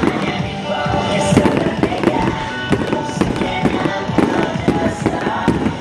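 Fireworks bursting in quick, irregular bangs over loud pop music played for the show.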